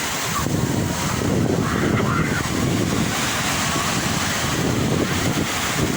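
Sea waves washing on the shore in a continuous rush, with wind buffeting the microphone in low gusts.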